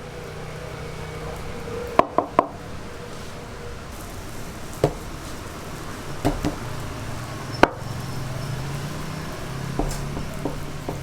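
Fermented dough for youtiao being worked by hand on a work table: scattered knocks and thumps, a quick run of three about two seconds in, over a steady low hum.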